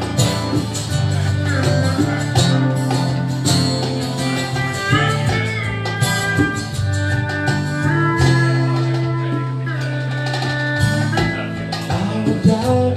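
Instrumental break: a strummed acoustic guitar carries the chords while a pedal steel guitar plays a lead with notes that slide up and down in pitch.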